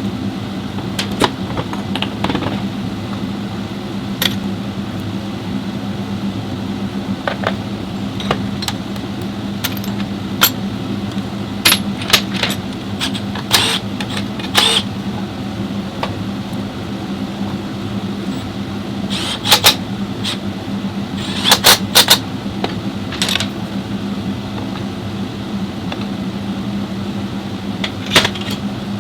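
A car engine running steadily, with scattered sharp clicks and clacks over it, some in quick clusters.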